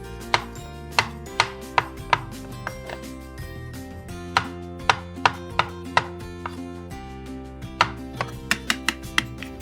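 Knife chopping food on a cutting board in irregular runs of sharp taps, with a pause of about two seconds partway through, over steady background music.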